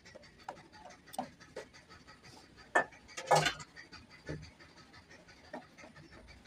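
Spoon stirring custard in a metal saucepan, kept moving so it thickens without lumps, with scattered light scrapes and clicks against the pan. Two sharper knocks come close together about three seconds in.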